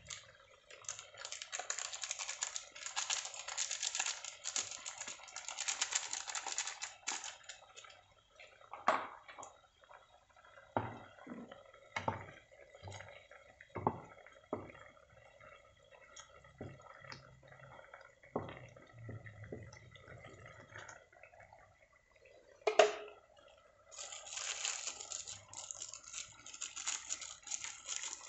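Tuna roe curry simmering in a frying pan, its thick sauce bubbling. A dense crackling sizzle fills the first several seconds and the last few, with scattered single pops of bursting bubbles in between.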